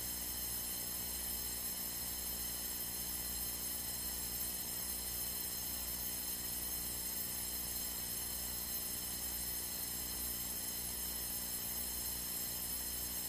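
Steady hum with a faint hiss in a small airplane's cockpit during level cruise flight, unchanging throughout.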